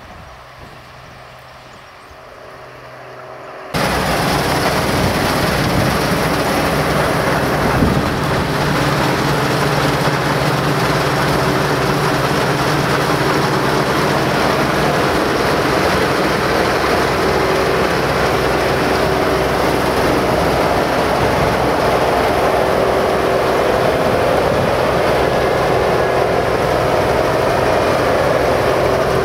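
Claas Dominator 208 Mega combine harvester running at work, a steady loud machine noise with a constant hum. For the first few seconds it is fainter, then it jumps abruptly to full loudness about four seconds in and stays even.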